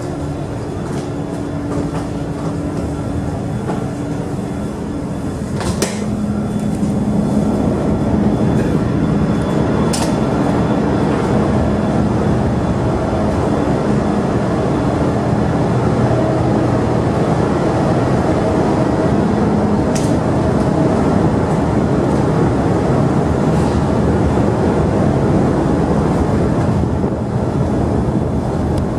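Steady rumbling drone of a car ferry's engines and machinery while underway, with a low hum running through it. It gets louder about six seconds in, and there are three sharp clicks spread through it.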